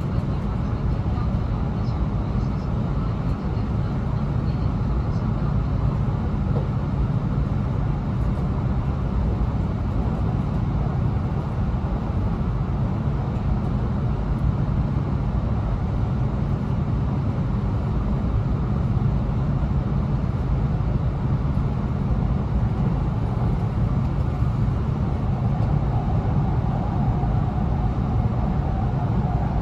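Steady running noise heard inside the passenger cabin of an E2 series Shinkansen train in motion, mostly a low rumble. A faint steady tone joins it about 25 seconds in.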